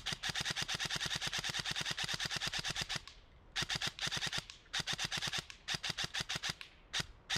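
ICS M4 CXP Sirius electric airsoft rifle with Begadi electronics firing full-auto: one long rapid burst of about three seconds, then several short bursts and a single shot. The bursts start and stop crisply with the trigger, showing the replica's quick trigger response.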